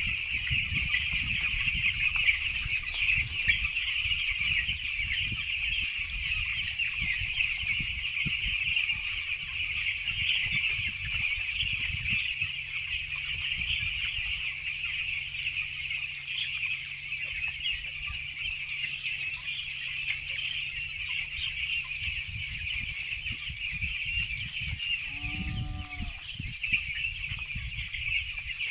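A flock of young chicks in a poultry shed peeping constantly in a dense, high chorus, over an irregular low rumble. A single short, lower call stands out about 25 seconds in.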